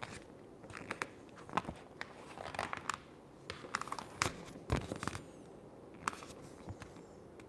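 Vinyl wrap film crinkling and crackling as it is handled and worked onto a mini fridge: scattered small crackles and clicks.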